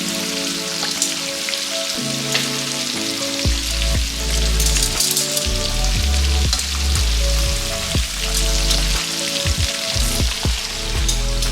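Chicken ribs deep-frying in hot oil, a steady sizzle with crackles. Background music with a bass line joins about three seconds in.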